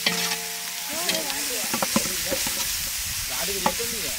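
Sliced onions, green chillies and ginger-garlic paste sizzling in hot oil in a large aluminium pot, stirred with a perforated metal ladle that scrapes and clicks against the pot's floor and sides. The sizzle is a steady hiss throughout.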